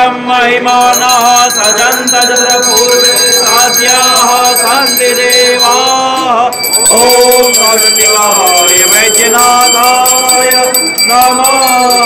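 Voices chanting an aarti hymn together, with bells ringing steadily over the singing.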